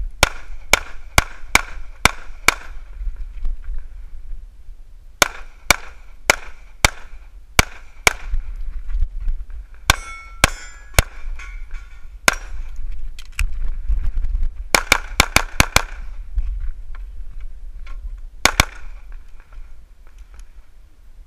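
ZEV ISI Speedgun pistol firing in quick strings: about six shots in a row at the start, five more after a short pause, a few spaced single shots, a fast run of about six, then two more near the end.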